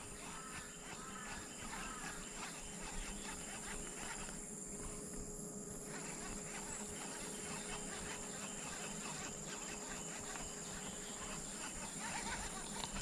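A steady chorus of insects chirping, with a continuous high-pitched buzz running under it.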